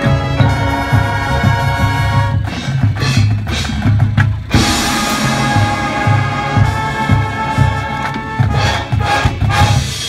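High school marching band playing: brass holding chords over drumline and front-ensemble percussion, with clusters of accented hits about three seconds in and again near the end.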